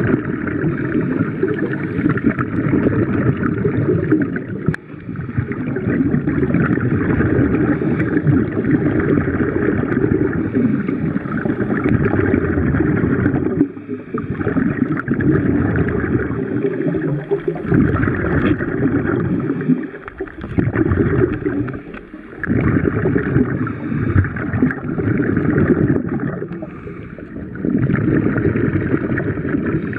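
Steady rushing, gurgling water noise picked up by a camera held underwater, dropping away briefly several times.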